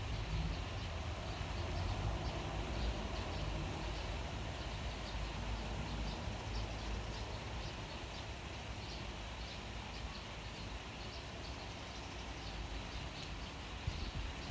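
Steady rain falling, with a low rumble underneath and faint short high ticks repeating a few times a second.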